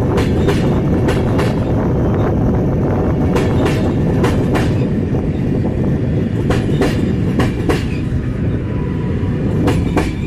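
PKP Intercity passenger coaches rolling past: a steady low rumble with clickety-clack, the wheels clicking in pairs over the rail joints every second or two.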